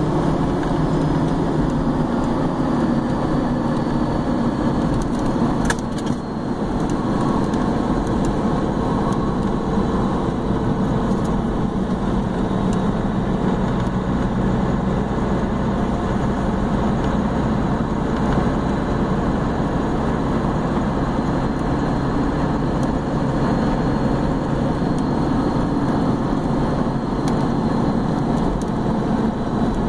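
Dodge Ram 2500's Cummins inline-six turbo diesel running steadily at highway speed, heard from inside the cab along with road noise. There is a brief click and a short dip in level about six seconds in.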